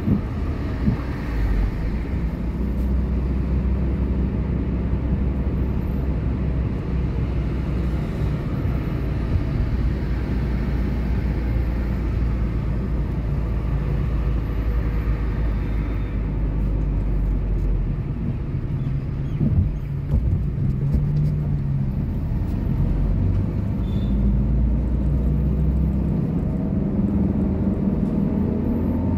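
A car driving on a city street: steady low engine and road rumble, its low hum shifting now and then.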